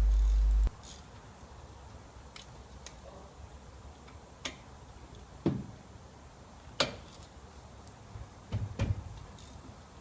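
A low rumble that cuts off suddenly less than a second in, then scattered metallic clicks and knocks of hand tools working on a car's disc brake caliper to take out the brake pads, with a cluster of louder knocks near the end.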